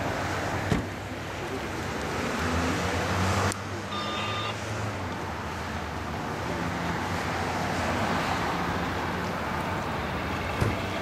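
Approaching CSX diesel freight locomotive, its engine running with a steady low drone. There is a sharp knock about a second in and another near the end.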